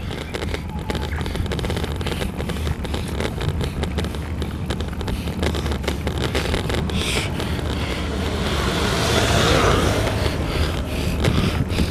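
Bicycle-mounted camera on a slow hill climb: a steady low rumble of road and wind noise with constant small rattles and clicks from the mount over cracked asphalt. About nine seconds in, the noise of an oncoming vehicle swells and fades as it passes.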